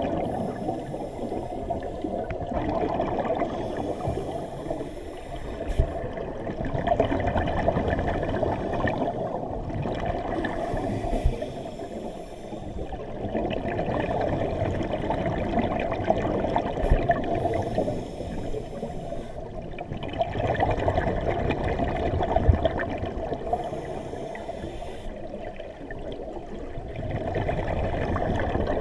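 Scuba diver's breathing heard underwater through the camera: bubbling exhalations from a regulator every several seconds, over a constant low rush of water around the camera housing.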